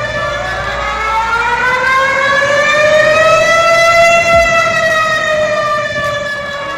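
Malaysian emergency warning siren wailing, its pitch rising slowly and falling again over several seconds.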